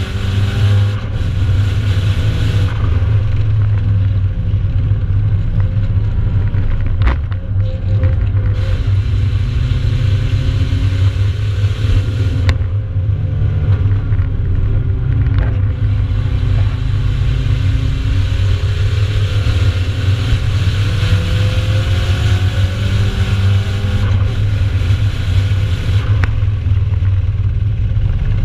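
Nissan 200SX's turbocharged four-cylinder engine heard from inside the cabin while the car is driven at speed. The revs climb and fall repeatedly over a steady rush of road and wind noise.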